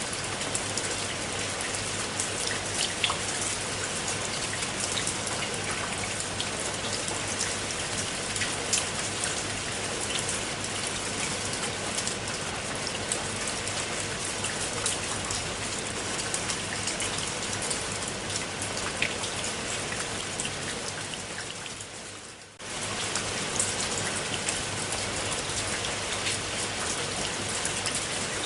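Steady rain falling on a pool of water, a dense patter with many separate drops. About three-quarters of the way through it fades down briefly and comes straight back.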